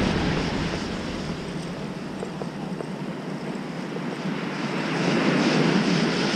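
Sea surf breaking and washing up on a sandy beach, with wind buffeting the microphone; the wash swells louder near the start and again about five seconds in.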